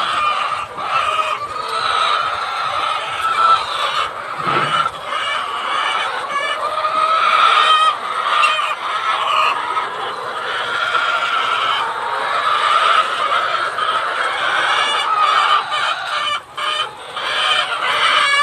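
Many caged laying hens clucking at once, a steady din of overlapping calls.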